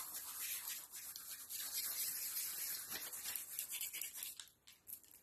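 Dried thyme rubbed between the fingers and sprinkled over raw fish: a dry rustling with many tiny crackles, fading out near the end.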